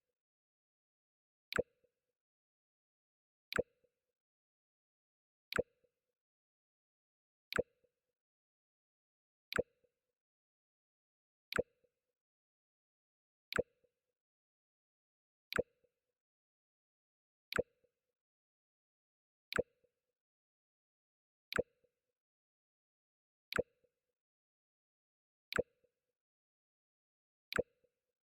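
Mac OS X 'Jump' alert sound effect repeating every two seconds: each time a short, sharp click with a brief low blip after it.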